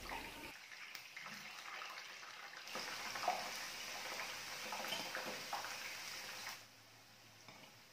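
Potatoes frying in hot oil in a frying pan: a faint sizzle with small crackles, louder from about three seconds in, then cutting off suddenly near the end.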